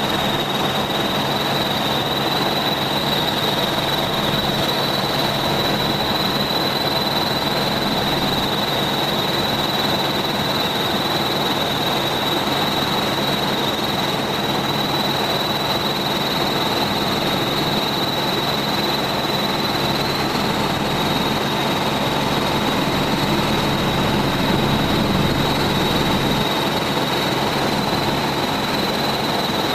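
Helicopter in flight: steady engine and rotor noise with a constant high-pitched whine, unchanging throughout.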